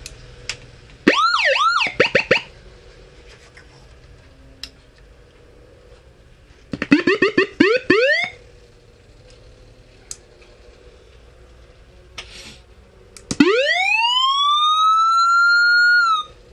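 Electronic 13-sound siren module sounding several of its siren tones. About a second in comes a brief cluster of quick rising-and-falling yelps. Around the middle there is a fast run of short rising chirps, and near the end one long wail climbs and holds for about three seconds before cutting off suddenly.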